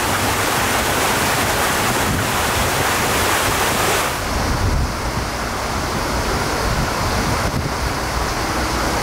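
Wind buffeting the microphone over a steady rushing noise; the hiss thins out about four seconds in.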